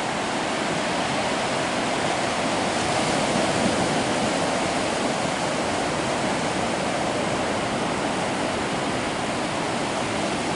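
Ocean surf breaking and washing up on the shore, a steady wash of noise.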